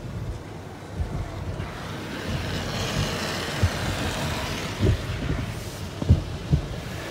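Automatic tunnel car wash heard from inside the car: foam and water spraying onto the windshield with a hiss that swells in the middle, and several dull thuds against the car body.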